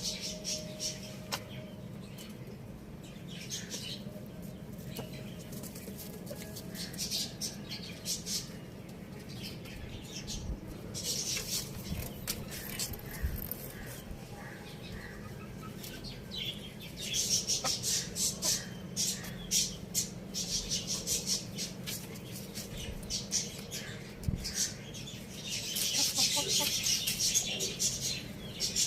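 Small pet birds chirping and twittering in quick, high, busy bursts, thickest about two-thirds of the way through and near the end, over a steady low hum.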